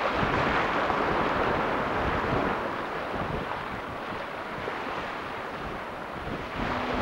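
Wind and choppy water splashing around a Thames sailing barge under sail, with wind buffeting the microphone; louder over the first couple of seconds, then steadier.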